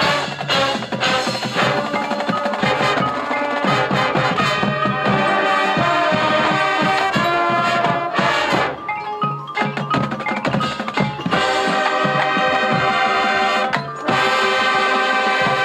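A high school marching band playing its field show, with mallet percussion and drums standing out over sustained band chords. The music thins out briefly twice, a little past the middle and near the end.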